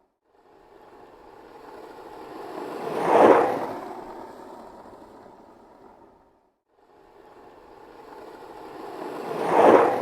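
Skateboard wheels rolling on pavement as the board passes by twice. Each pass swells to a peak and then fades away; the first peaks about a third of the way in and the second near the end.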